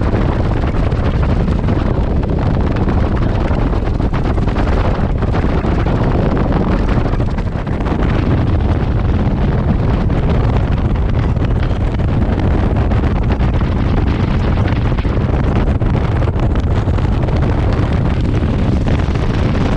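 Wind roaring over the microphone of a fishing boat under way across the lake, with the boat's motor and the rush of water mixed in beneath. A steady, loud, deep rumble that barely changes.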